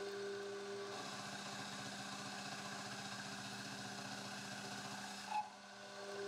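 Metal lathe running steadily with a constant motor hum while turning a scrap steel bar, with one brief sharp sound about five seconds in.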